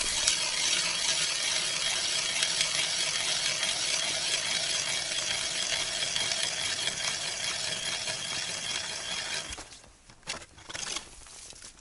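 Hand-cranked ice auger drilling through the ice: a steady grinding scrape of the blades cutting. It stops about nine and a half seconds in, followed by a couple of short knocks.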